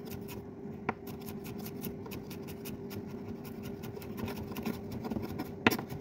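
Small kitchen knife chopping garlic on a wooden cutting board: a run of quick light taps of the blade against the board, with louder knocks about a second in and near the end.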